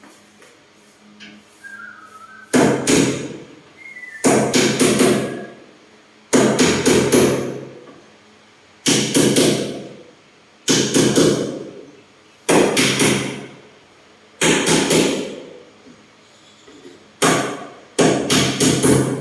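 Hammer striking wood in quick runs of several blows each, a new run every couple of seconds, about nine runs in all.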